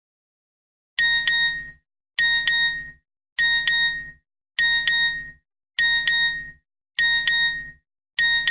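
An electronic ringing tone played as a sound effect: the same short chime repeated about every 1.2 seconds, starting about a second in, seven times.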